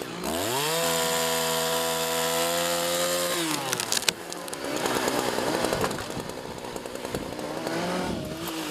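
Chainsaw felling a mature ash: the engine is throttled up and held at high revs, then drops off after about three seconds. A few sharp cracks follow, then several seconds of rough, unpitched noise, and the saw's engine is heard again near the end.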